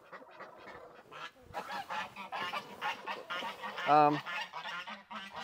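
Geese honking: a quick run of short honks, then one loud honk about four seconds in.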